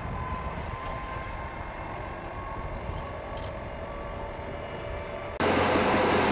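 AAV-7A1 tracked amphibious assault vehicle driving, its diesel engine and tracks running steadily. About five seconds in it becomes abruptly much louder, heard up close from on board the vehicle.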